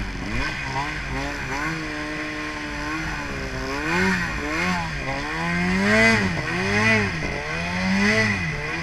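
Snowmobile engine revving up and down repeatedly, about six short revs in the second half.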